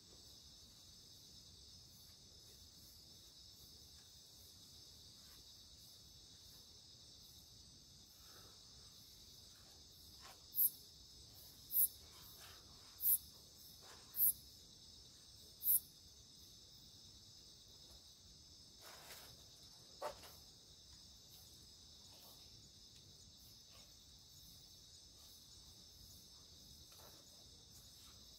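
A steady chorus of night insects such as crickets, with five loud, very high, short chirps about a second apart near the middle, and a couple of soft knocks a little later.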